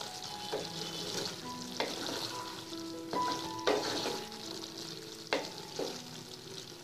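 A spatula stirring a thick kohlrabi-and-pea curry in a kadai, the reduced gravy sizzling softly over low heat, with about six sharp scrapes and knocks of the spatula against the pan.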